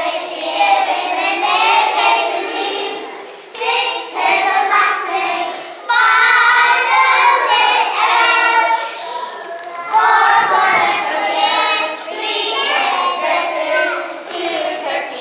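A group of preschool children singing a song together, in short phrases with brief breaks between them.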